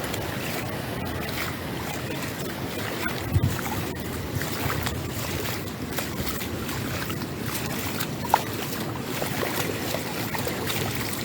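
Steady rushing noise of wind buffeting the microphone over moving water, with a few small knocks and one sharp click about eight seconds in.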